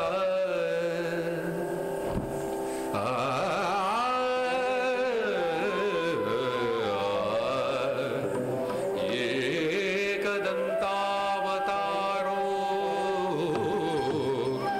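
South Indian classical music for dance: a melodic line with sliding, ornamented pitches.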